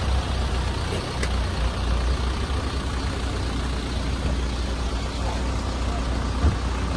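Steady low rumble and hiss of road vehicles running, with one brief thump near the end.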